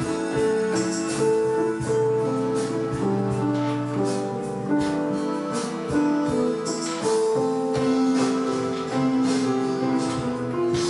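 Electronic keyboards playing piano-like held chords and a melody over a light, steady beat.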